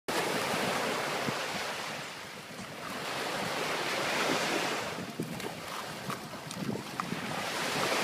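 Small waves breaking on a sandy shore, the surf swelling and easing in slow surges: loud at the start, fading about two seconds in, building again around four seconds and once more near the end.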